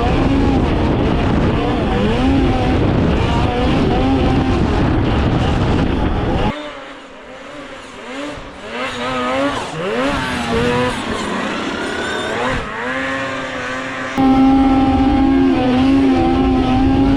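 Snowmobile engine running on the trail, its pitch rising and falling with the throttle over heavy wind rumble. About six seconds in the sound drops suddenly to a quieter engine revving up and down. A few seconds before the end it jumps back to a louder engine holding a steady pitch.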